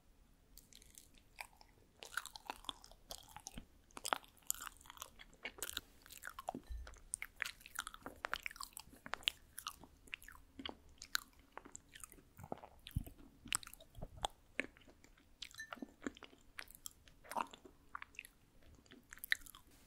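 Close-miked chewing of soft rice cake: many small, irregular wet mouth clicks and smacks.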